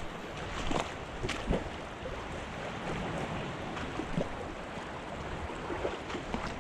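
Shallow creek water running steadily over rocks, with a few light clicks and taps in the first couple of seconds.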